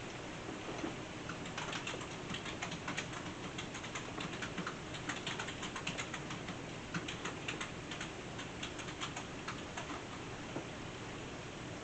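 Typing on a computer keyboard: quick, irregular key clicks that start about a second and a half in and thin out near the end, over a steady hiss.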